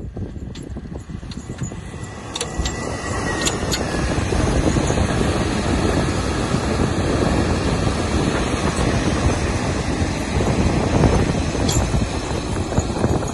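Hidromek wheel loader's diesel engine running under load as it pushes and lifts snow, growing louder about three seconds in.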